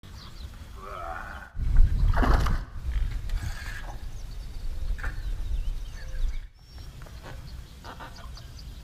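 Wind buffeting an action camera's microphone, a low rumble that is loudest in the middle few seconds and cuts off and restarts abruptly twice, with a few faint short clicks and glides.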